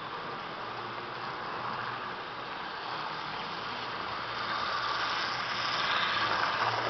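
HO-scale model trains running on the track: the motor and wheels of a Jouef Picasso railcar model, with a Mehano TGV Atlantique, make a steady whirr. It grows louder over the last couple of seconds as the railcar comes close.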